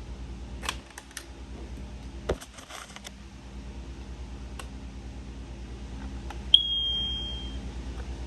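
Kidde P4010ACS smoke alarm handled with a few light clicks, then giving a single high beep about six and a half seconds in, held for about a second and fading out: the alarm switching on.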